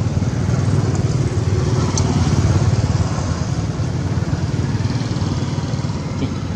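A steady low rumble, like an engine running or wind on the microphone.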